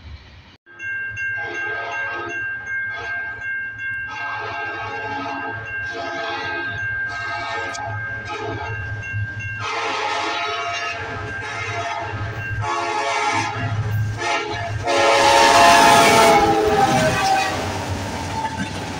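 Freight train's diesel locomotive sounding its horn in a series of long blasts as it approaches, then running past close by, loudest at about 15 to 17 seconds. Near the end its boxcars roll by.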